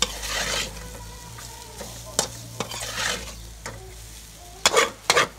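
Noodles being stir-fried in a steel wok: a spatula scrapes and tosses them against the pan over a frying sizzle. Several sharp scrapes, with a quick run of louder ones near the end.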